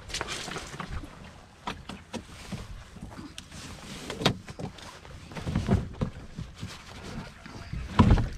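Handling sounds of rope being tied in a slippery clove hitch around a wooden paddle shaft on an open canoe's gunwale: rope rubbing and scattered knocks against the hull, the loudest a thump near the end.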